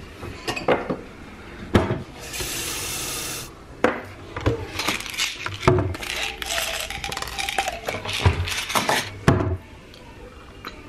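Kitchen cabinet door opening with a couple of knocks, a brief rush of running water about two seconds in, then a plastic pill bottle being handled and opened, with a long run of small clicks and rattles.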